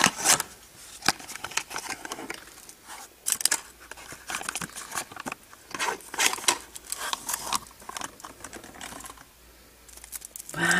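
A cardboard surprise-egg box being opened by hand: a run of small clicks, scrapes and crinkles as the flaps are pulled open and the foil-wrapped chocolate egg is slid out.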